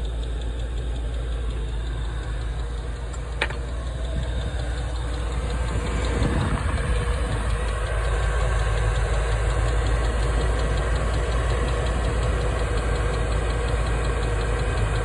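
Chinese diesel air heater running with a steady mechanical hum from its fan and burner, a single sharp click about three and a half seconds in, and a slight rise in level about six seconds in as it ramps up.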